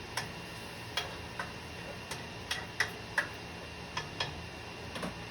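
Light, irregular clinks and taps of cookware, about ten in five seconds, some with a short metallic ring.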